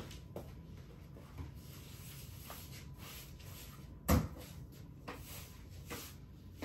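Light knocks and rubbing from household things being handled in a small room, with one louder thump about four seconds in.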